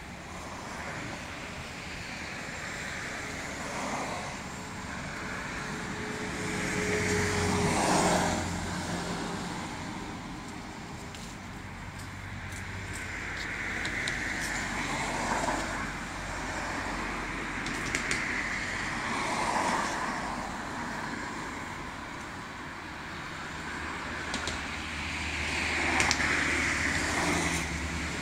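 Road traffic: a steady low engine rumble with vehicles passing every few seconds, the loudest pass about eight seconds in and another near the end.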